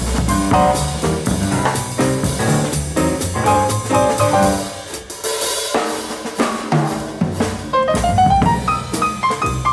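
Live small-group jazz: piano playing quick lines over drum kit and upright bass. The band thins out briefly a little past the middle, and the piano climbs in a rising run of notes near the end.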